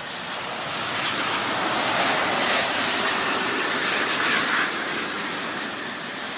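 Jet airliner passing close by. Its engine noise swells over the first couple of seconds, peaks in the middle and fades away.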